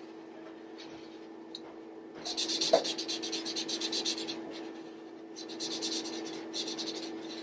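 Felt-tip marker scribbling on paper in quick back-and-forth strokes, filling in a drawn shape. It comes in two spells: from about two seconds in for two seconds, then again in the last couple of seconds.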